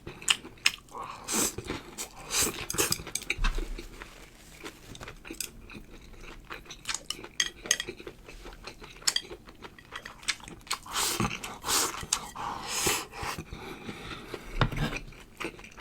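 Someone eating fried shrimp: crunchy bites and chewing, with utensils clicking against dishes.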